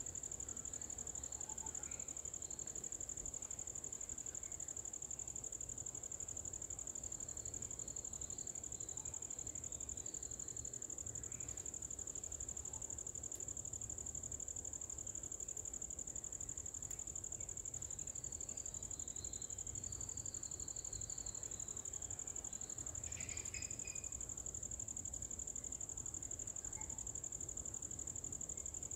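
Steady high-pitched drone of insects, unbroken throughout, with a few faint chirps now and then.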